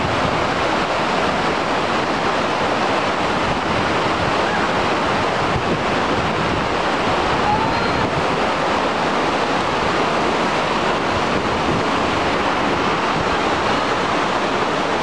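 Steady rushing of water from a tall waterfall, an even, unbroken noise.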